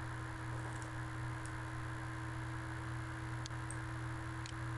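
Steady low electrical hum and hiss of the microphone recording, with a few faint computer mouse clicks.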